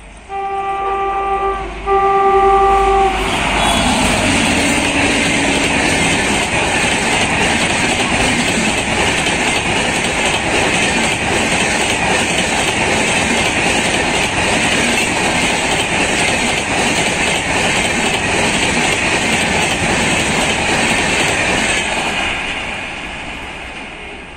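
An Indian Railways electric locomotive sounds two short horn blasts, the second about two seconds in. It then passes at speed hauling a long rake of LHB passenger coaches: a loud, steady rush and clickety-clack of wheels on rail, fading near the end as the train draws away.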